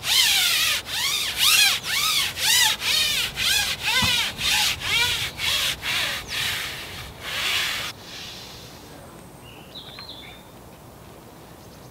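Daiwa Airity carbon fishing pole being shipped out hand over hand, sliding in about a dozen quick pushes, each a rubbing stroke that rises and falls in pitch; the sliding stops about eight seconds in.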